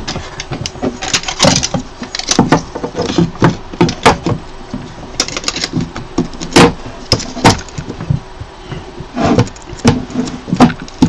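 Irregular clicks, knocks and rattles of hands fitting a replacement LCD screen and its ribbon cable into the plastic and metal frame of a resin 3D printer, with a few sharper knocks among them.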